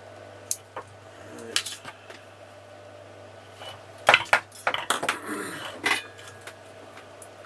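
Small metal objects clinking and clattering on a workbench: a few separate clicks, then a busier run of clinks about four to six seconds in, over a steady low hum.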